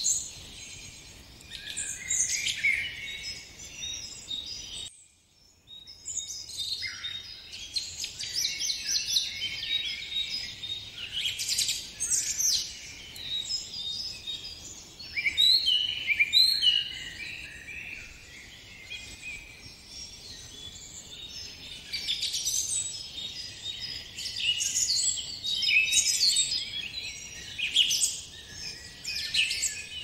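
Chorus of songbirds chirping and singing, many short overlapping calls and quick sweeping notes, with a brief cut to near silence about five seconds in.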